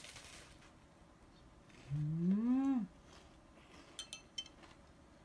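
A woman's drawn-out 'mmm' of enjoyment while tasting food, rising and then falling in pitch about two seconds in. A short rustle at the start and a few faint clicks near the end.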